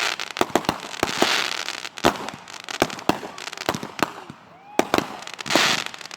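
Consumer fireworks going off: a rapid, irregular string of sharp bangs and crackles with hissing bursts, a short lull about four seconds in, then a brief whistle and more hissing and bangs.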